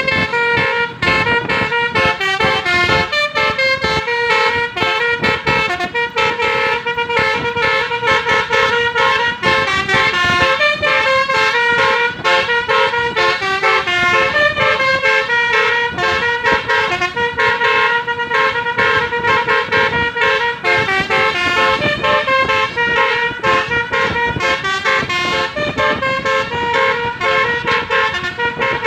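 Basuri telolet musical horn on a medium bus, playing a melody through its roof-mounted trumpets: loud, trumpet-like notes that step quickly from one pitch to the next without a break.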